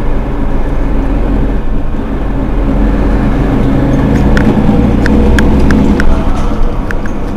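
Mercedes-Benz Citaro G C2 articulated bus's rear engine idling steadily while the bus stands still, with a few short, sharp ticks in the second half.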